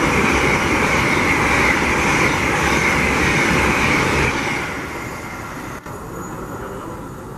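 Train passing through the station at speed: loud rushing wheel and rail noise with a high whine that falls slightly in pitch, fading away about four and a half seconds in.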